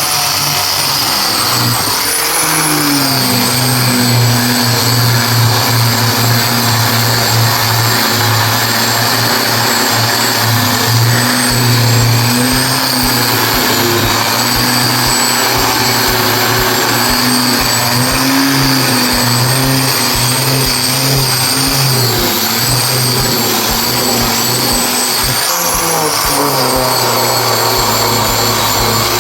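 Electric woodworking power tool running continuously with a motor whine whose pitch sags and recovers as the tool is loaded by the wood.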